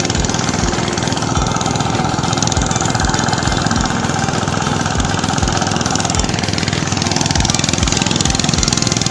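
Hand tractor's engine running steadily as it works the paddy soil, with a low thump repeating roughly every half second.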